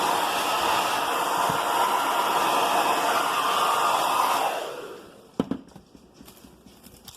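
Hand-held hair dryer blowing steadily, then switched off about four and a half seconds in, its noise dying away over half a second. A single sharp knock follows, then a few faint light ticks.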